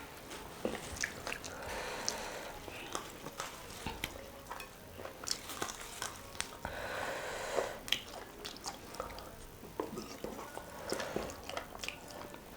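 Close-miked eating: chewing and biting, with many irregular short mouth clicks and smacks.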